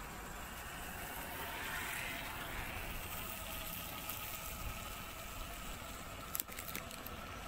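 Faint, steady outdoor hiss from a flooded field with no clear single source, with a few sharp clicks about six and a half seconds in.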